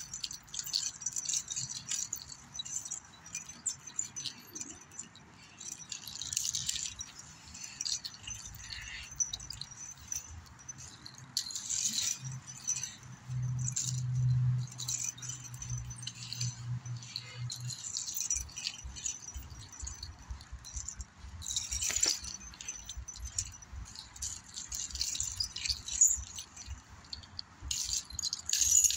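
Steel links of a nine-section chain whip jangling and rattling as it is swung and wrapped, in irregular bursts of metallic jingling, with a sharp clink about two-thirds of the way through.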